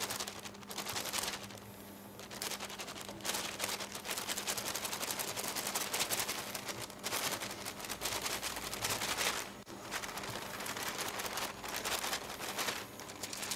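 Rapid, dense scraping and clicking as sifted flour and cocoa are folded into whipped egg batter in a stainless steel bowl: the spatula works against the bowl and the paper the flour is poured from rustles. A steady low hum runs underneath.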